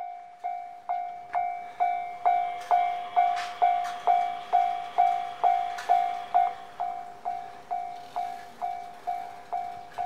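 Japanese railway level-crossing warning bell ringing: a clear, ringing ding repeating evenly about twice a second, growing louder over the first couple of seconds and then holding steady.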